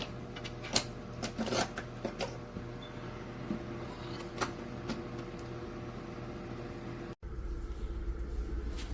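Small BREEZOME dual-semiconductor (Peltier) dehumidifier running with a steady fan hum, with a few light clicks and taps in the first half. About seven seconds in the sound cuts off abruptly and a deeper, lower hum follows.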